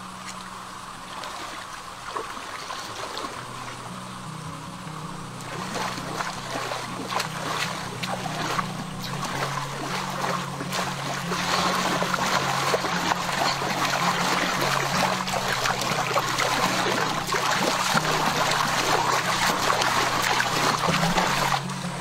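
Hands paddling river water: repeated splashing that starts about a quarter of the way in and grows louder about halfway through. Background music with low steady notes plays underneath.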